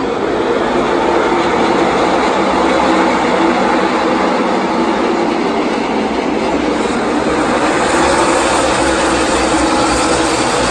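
A field of NASCAR Xfinity Series stock cars running at speed on the track, their V8 engines making a loud, continuous drone that swells over the first couple of seconds and then holds steady.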